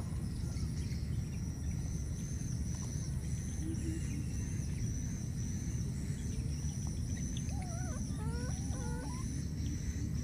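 Outdoor ambience: a steady low rumble under a high, pulsing insect buzz, with a few short calls gliding up and down about eight seconds in.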